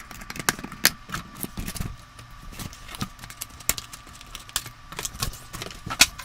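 Packaging being handled around a boxed RC rock crawler: irregular sharp clicks and knocks with rustling, as the zip ties holding it in the box are dealt with and it is freed.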